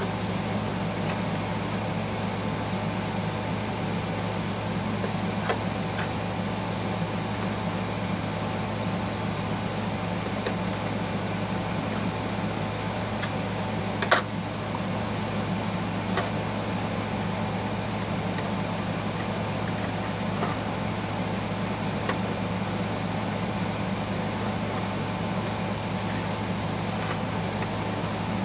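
Steady hum of a running fan, with a few faint ticks and one sharp click about halfway through.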